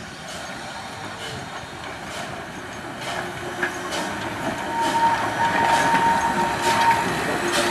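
Steam tank locomotive 131 060 and its coaches rolling past at close range: regular knocks roughly every 0.8 seconds over a running rumble that grows steadily louder as it approaches. A steady high squeal joins about four seconds in.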